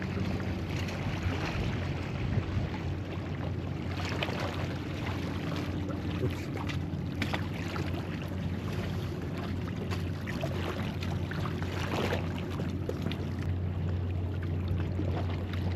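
Steady low engine hum, with a few faint clicks over it.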